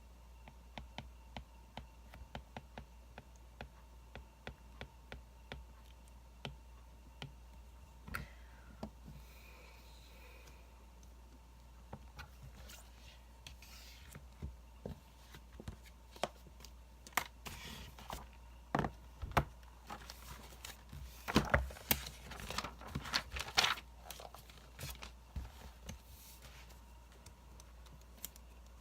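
Wood fire crackling, with sharp pops scattered throughout that come thicker and louder about two-thirds of the way through.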